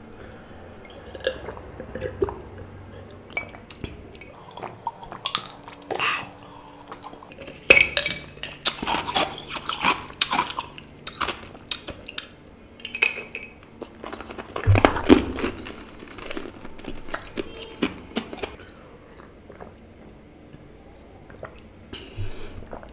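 Close-miked mouth sounds of someone finishing a meal: lip smacks, sucking on curry-coated fingers and sips from a drinking glass, as scattered clicks and short wet bursts with a few light clinks. They are busiest through the middle and thin out near the end.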